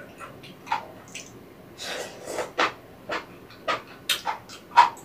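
Wet eating sounds of soupy rabokki, ramen noodles and rice cakes in broth: slurping, chewing and lip smacks in a string of short bursts, the loudest near the end.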